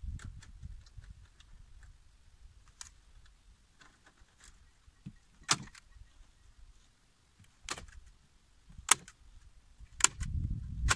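Chicken wire being fastened to wooden framing with a staple gun: about four sharp snaps spread over the second half, with fainter light ticks and rattles of the wire between them.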